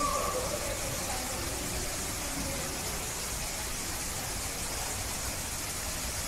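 Steady hiss of background noise with no distinct events.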